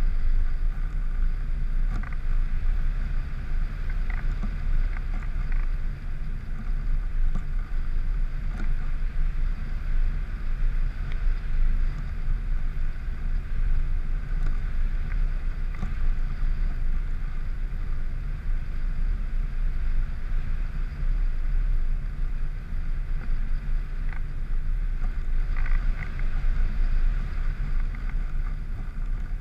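Steady wind rush and low rumble on the microphone of a camera flying high in the air, with a steady mid-pitched drone behind it.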